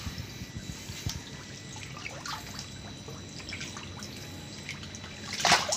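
Water trickling and dripping as a round tarpaulin catfish pond drains through its bottom valve for a water change. Near the end comes a burst of loud splashing in the shallow water.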